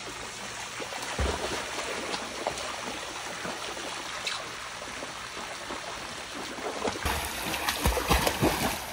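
Pool water sloshing and lapping as a dog swims through it, with a low thump about a second in. Near the end, louder splashing from the dog paddling close by.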